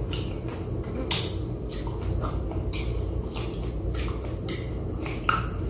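Close-up eating sounds: chewing and lip-smacking as soft, irregular wet clicks a few times a second, over a steady low hum.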